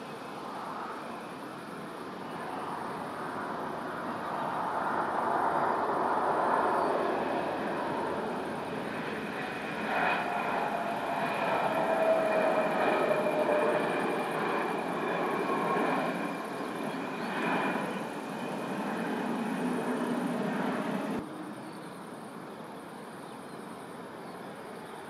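Twin turbofan engines of an Embraer E-Jet on the runway. The engine noise builds, peaks about halfway through with a high whine sliding down in pitch, then fades. About 21 seconds in it cuts off suddenly, leaving a quieter steady noise.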